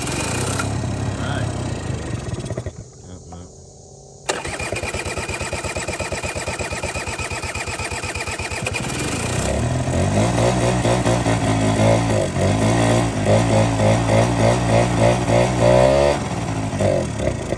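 Honda Spree's small two-stroke scooter engine running, dying about three seconds in, then catching again suddenly about a second and a half later. It idles, then is revved up and down repeatedly for several seconds before settling back to idle near the end.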